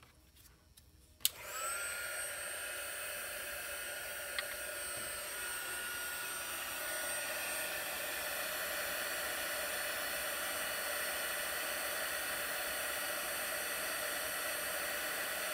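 A handheld embossing heat gun switched on with a click about a second in, then running with a steady blowing whine as it melts embossing powder.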